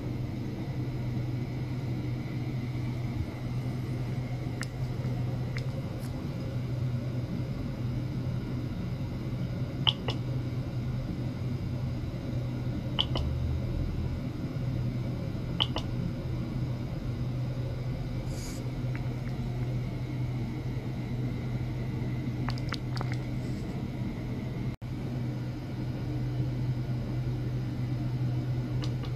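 Steady low hum over a faint hiss from running electronic test equipment, broken by a few sharp clicks about ten, thirteen and sixteen seconds in.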